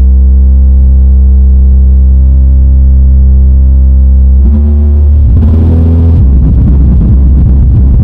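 Bass-heavy electronic music played very loud through a speaker driven by a car amplifier: a long held deep bass note with a stack of overtones, shifting to new notes about four and a half seconds in and again a second later.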